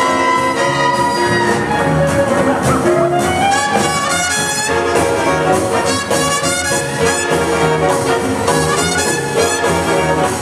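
Swing big band playing live: trumpets, trombones and saxophones over double bass and drums, with a steady swinging beat and a rising glide in the band about three seconds in.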